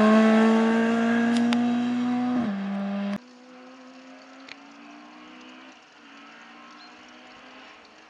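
Rally car engine at high revs, its pitch climbing steadily as it accelerates, then easing off about two and a half seconds in; the sound cuts off abruptly just after three seconds. After that a distant rally car engine is faintly heard, rising in pitch with an upshift about halfway through.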